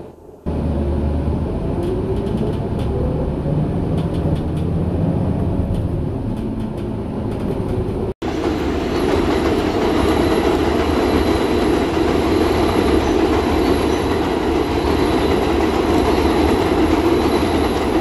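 A train running on rails, heard as a steady rumble. About eight seconds in, the sound cuts to a louder, even rumble with a thin high whine over it.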